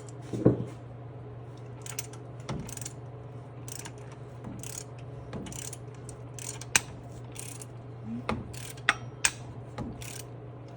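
Scattered light metal clicks and clinks of hand work on the rebuilt top end of a Ford 4.0 pushrod V6, the loudest about half a second in, over a steady low hum.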